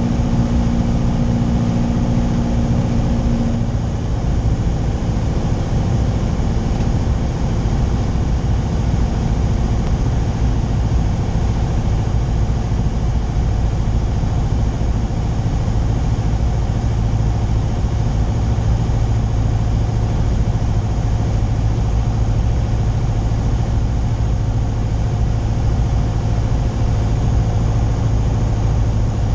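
Piper PA-28's single piston engine and propeller droning steadily inside the cockpit, heard with the airflow around the cabin, as the plane descends toward the runway. A higher tone in the drone fades out about four seconds in.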